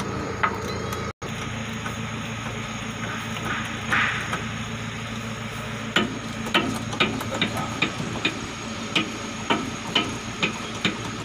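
Sharp metallic clicks of a hand wrench working bolts on an excavator's hydraulic control valve. The clicks begin about halfway through and come roughly two a second, over a steady low hum.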